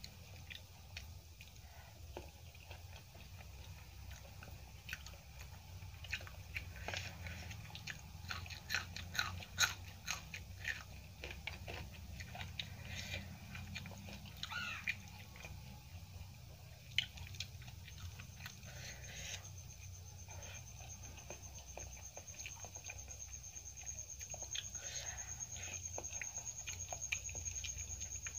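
Close-up eating sounds of aloo curry, rice and crumbled papad eaten by hand: chewing and biting, with many short crisp crunches and mouth clicks. A steady low hum lies underneath, and a thin high whine comes in about two-thirds of the way through.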